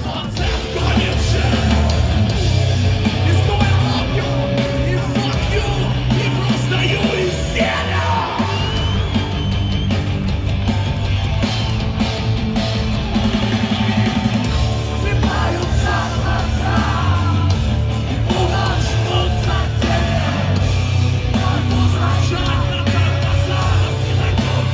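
Heavy rock band playing live and loud, with yelling over the music.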